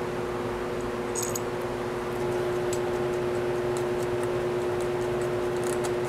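Steady mechanical hum at one fixed pitch, with a few light metallic clicks from carburetor parts being handled.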